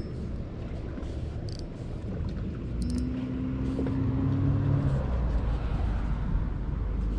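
Low rumble with an engine humming at a steady pitch, clearest about three to five seconds in, and a few light clicks near the start.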